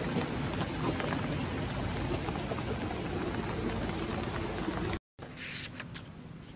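Steady rain, an even hiss with scattered drop ticks, that cuts off abruptly about five seconds in; after the cut comes a brief rustle and a few light taps.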